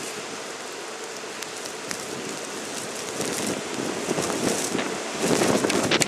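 Blizzard wind blowing hard with blown snow, gusting over the microphone. It holds fairly steady at first, then builds into louder gusts over the last two seconds.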